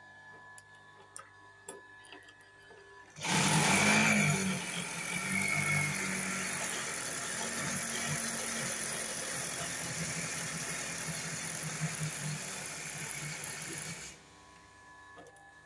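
Industrial sewing machine running steadily for about eleven seconds while a bobbin winds on its belt-driven bobbin winder. It starts suddenly about three seconds in and stops abruptly near the end. A few small clicks of handling come before it.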